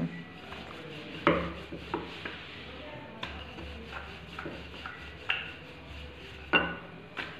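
Wooden rolling pin rolling out paratha dough on a stone countertop: a low rumbling as it rolls back and forth, with about six sharp knocks of the pin against the stone.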